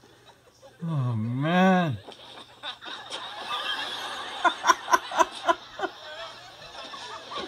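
A man's long, wavering martial-arts cry about a second in, its pitch swooping down, then up and down. Then studio-audience laughter, with a run of about six quick, evenly spaced laughs near the middle, heard from a tablet's speaker.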